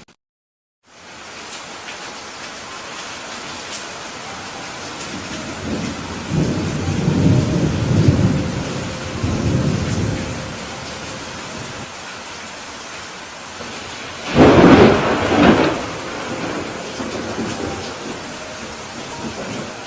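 Heavy rain falling steadily, with thunder: a low rolling rumble about a third of the way in, then a louder, sharper peal a few seconds later. The sound cuts out completely for under a second at the very start.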